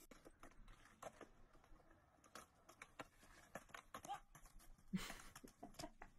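Near silence with faint, irregular clicks and ticks, a slightly louder knock about five seconds in.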